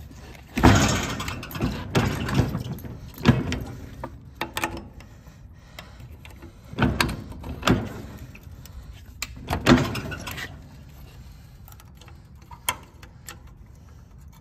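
Metal clanks and rattles from the depth-adjustment pin and linkage of a no-till seed drill being reset by hand: a series of sharp knocks over the first ten seconds, then quieter with a single click near the end.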